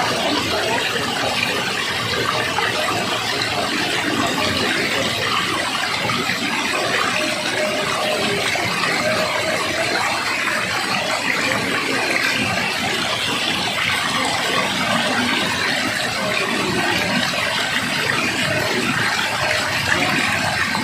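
Water rushing steadily in an even, unbroken stream.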